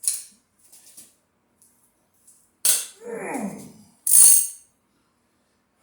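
Metal hand tools clanking against a cast-iron small-block V8 during teardown while the cylinder heads are worked loose: a sharp metallic hit at the start, a louder one about two and a half seconds in followed by a short falling tone, and a loud rattling, hissing clatter just after four seconds.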